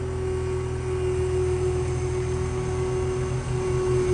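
Skid steer's engine running steadily as the machine backs up, with a steady whine over the engine note.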